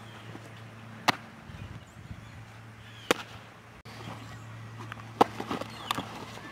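Softball smacking into a catcher's leather mitt three times, about two seconds apart, the third catch followed by a few lighter knocks as she transfers the ball and throws.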